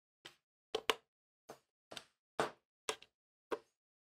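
Sheet-metal capacitor box and its cover clicking and knocking together as the cover is fitted on and the box is handled: about eight short, sharp clicks at irregular intervals.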